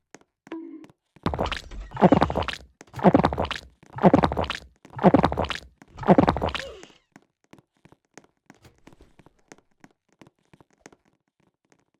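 A person burping loudly five times in a row, each burp low, rasping and about a second long, followed by a few faint clicks.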